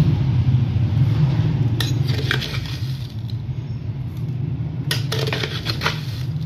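Metal spoon clinking against a ceramic mug as sugar is spooned in: two clusters of light clicks, about two seconds in and again around five seconds in, over a steady low hum.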